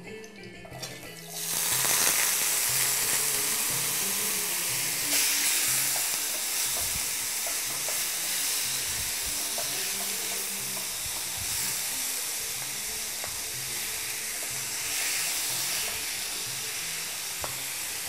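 Chopped onions frying in hot fat in a frying pan: a loud sizzle starts suddenly about a second in, as the onions go in, and then holds steady while a wooden spatula stirs them, with small scraping ticks.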